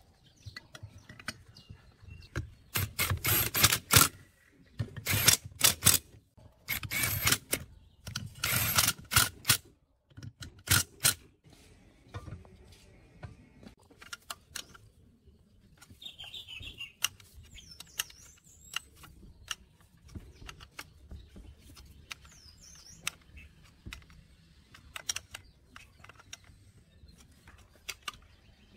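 Bursts of metal clatter as an aluminium engine crankcase is handled and set onto its steel mounting frame. This is followed by light clicks of an open-end wrench turning the mounting bolts. Birds chirp a few times in the background.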